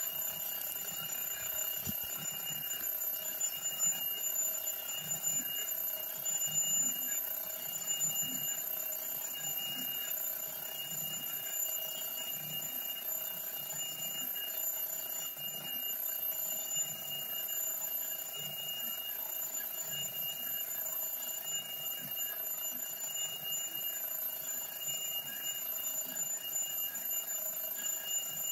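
A vintage tin wind-up merry-go-round toy, about 1956, running on its wound clockwork spring motor: a steady clockwork whirring with a soft, regular low clatter as the carousel turns.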